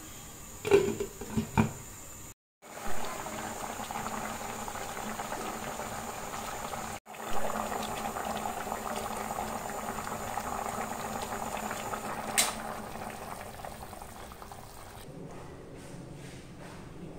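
Fish curry boiling hard in a pan, a steady bubbling. About a second in, a glass lid clinks against the pan a few times, and there is a single click near the end of the boiling.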